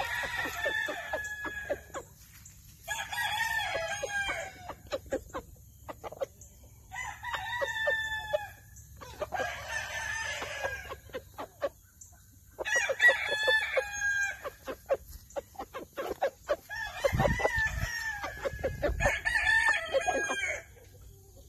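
Roosters crowing again and again, about seven crows of one to two seconds each, each falling in pitch at its end.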